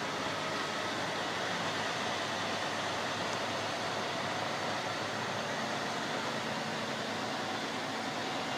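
Steady, unbroken running of a crane truck's engine, an even hum and hiss with no changes in pitch or level.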